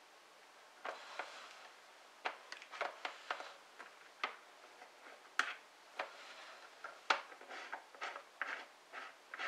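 Irregular light metallic clicks and ticks, a few a second, as a reloading die is turned and handled in the threaded top of a single-stage press while the crimp is being set.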